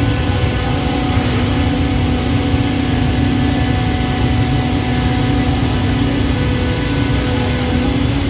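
Automatic CNC scroll saw running, a loud, steady machine drone with a constant hum that holds unchanged throughout.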